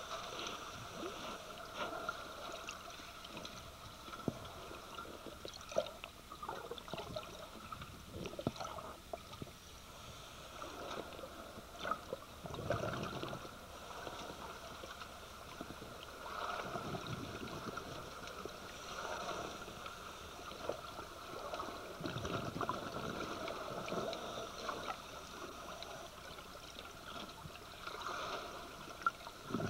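Scuba diver's exhaled bubbles gurgling past an underwater camera housing, a louder burst every five seconds or so, over a steady hiss with scattered clicks.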